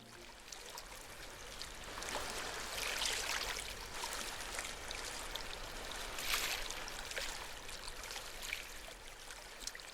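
Water noise, a dense crackle with many sharp clicks, swelling briefly about three seconds in and again about six seconds in.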